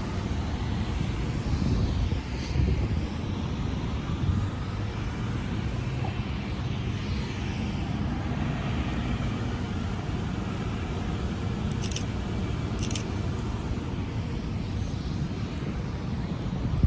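Steady low rumble of outdoor urban traffic, with two short clicks about a second apart late on.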